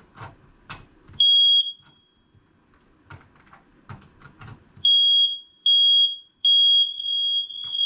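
Household smoke alarm being tested: one short, loud, high-pitched beep, then after a few seconds of knocks and footsteps, a run of beeps at the same pitch, the third held longer.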